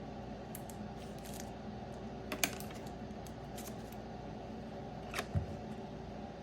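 A few light clicks and rustles of trading cards being handled and set down, the sharpest about two and a half seconds in, over a steady room hum.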